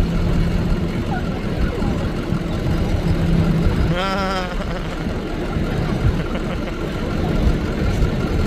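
Steady car engine and road noise in slow traffic, with an engine hum that comes and goes. A short warbling, voice-like sound comes about four seconds in.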